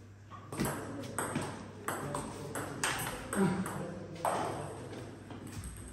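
Table tennis rally: the celluloid-type ping-pong ball clicking sharply off the rackets and the table, roughly two to three hits a second.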